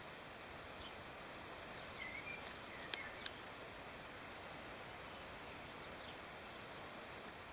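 Quiet rural outdoor ambience: a steady, even hiss, with a faint chirp about two seconds in and two sharp clicks close together about three seconds in.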